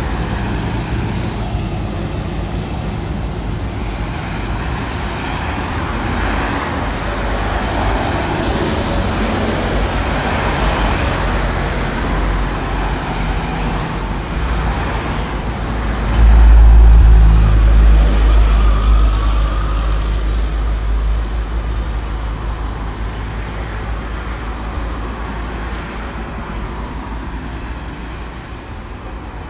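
Road traffic passing on a busy avenue: cars and a box truck driving by over a steady traffic background. About sixteen seconds in, a sudden loud low rumble lasts a couple of seconds and then fades.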